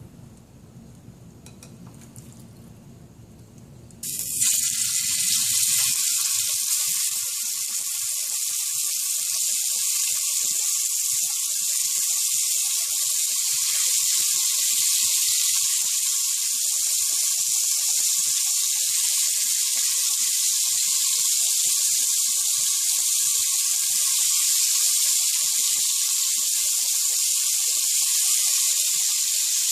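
Raw beef cubes searing in hot olive oil in a heavy pot, browning. After a few seconds of quiet, the sizzle starts suddenly about four seconds in as the first pieces hit the oil, then carries on loud and steady with fine crackling.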